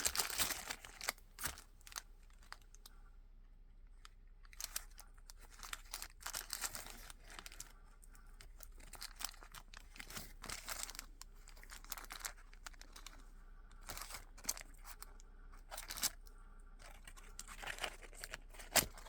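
Handling of a chrome-plated metal folding ruler: scattered light clicks, rustling and crinkling at irregular intervals.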